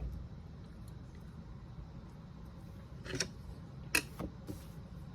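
A few light clicks and taps, about three to four and a half seconds in, of a small die-cast metal toy car being handled, over a low steady hum.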